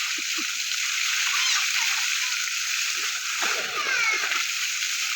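Water running and splashing steadily, an even rushing hiss.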